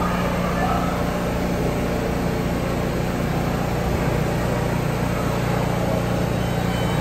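R160 subway train standing at an underground platform with a steady, even hum from its onboard equipment.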